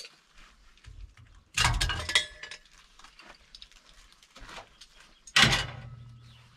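Steel pieces clanking: a metallic clatter with a ringing tone about a second and a half in, then a single sharp clank near the end that rings briefly as it dies away.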